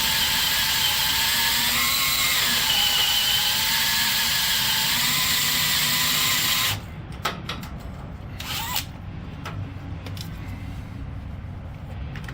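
Electric drill boring out a rivet in a steel truck frame, its motor whine wavering in pitch as the load changes. The drill stops abruptly about seven seconds in, followed by a few light metallic clicks and a brief squeak.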